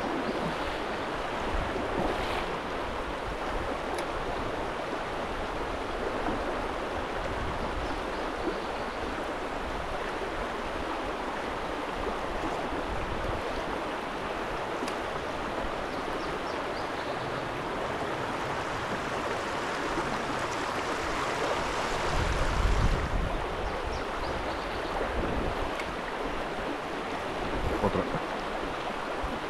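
Mountain river rushing steadily over rocks, with a brief low rumble about three-quarters of the way through.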